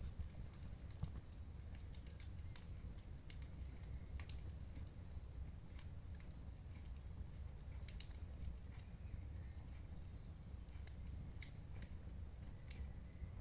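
Wood fire crackling in a fireplace: scattered sharp pops and snaps at irregular intervals over a steady low rumble.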